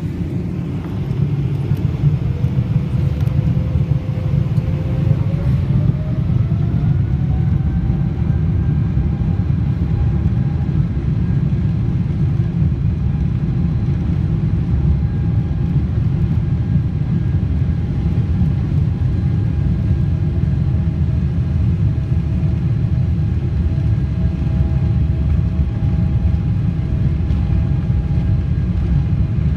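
Airliner jet engines heard from inside the cabin, spooling up to takeoff thrust: a whine rises in pitch over the first several seconds and then holds steady over a loud, constant rumble of the takeoff roll.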